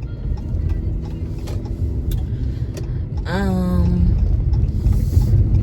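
Car cabin noise while driving: a steady low road-and-engine rumble with a few faint clicks and creaks.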